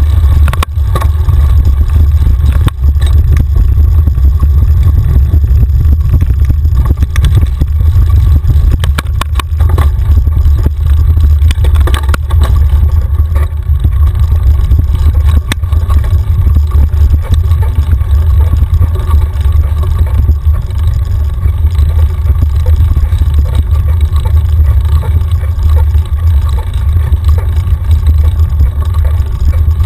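Mountain bike riding down a rough dirt trail: a heavy, steady rumble of wind and trail vibration on the bike-mounted camera's microphone, with scattered sharp knocks and rattles as the bike hits bumps, more of them in the first half.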